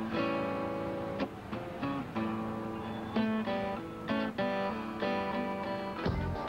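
Acoustic guitar strummed, a run of chords each struck and left ringing before the next.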